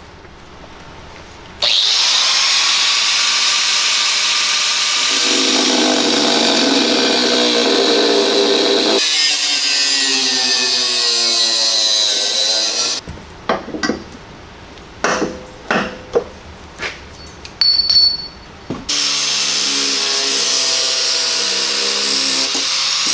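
Angle grinder cutting through a welded steel bump-stop mount, starting a second or two in and running steadily, its pitch wavering as the wheel bites. About halfway through it breaks into several short bursts, then near the end it runs steadily again as a flap disc smooths the cut edges.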